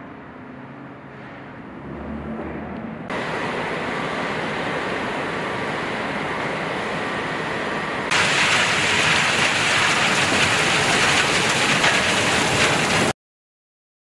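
Steady noise of stone crushing and grinding plant machinery running. It jumps louder about three seconds in and again about eight seconds in, then cuts off suddenly about a second before the end.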